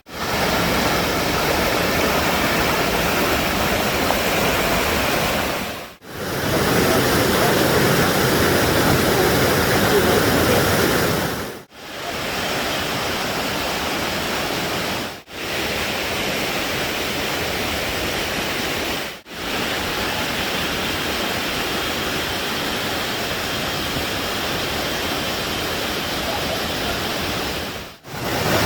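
Waterfall: a steady, loud rush of falling water. It drops out briefly several times at cuts between clips, and its strength shifts slightly from one section to the next.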